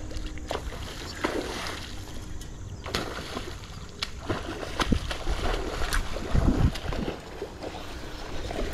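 Hooked king salmon splashing and thrashing at the river surface in a series of irregular sharp splashes, over wind buffeting the microphone, with a heavy gust about six and a half seconds in.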